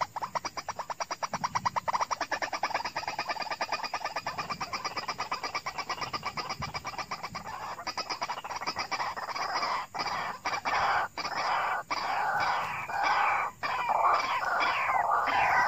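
White-breasted waterhens calling. A fast, even run of clipped notes gives way, from about nine seconds in, to louder harsh croaking calls with falling notes, broken by short pauses.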